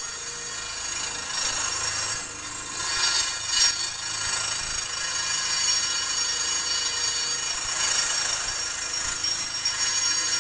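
Bi-metal hole saw and its pilot bit, spun by a cordless drill, squealing against stainless steel plate: a loud, steady, high-pitched screech of metal rubbing rather than cutting, as the hole saw fails to get through the stainless.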